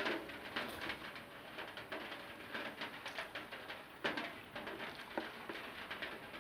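Close-miked chewing and mouth sounds of someone eating rice with egg curry: irregular short wet clicks and smacks, with a louder one at the start and another about four seconds in.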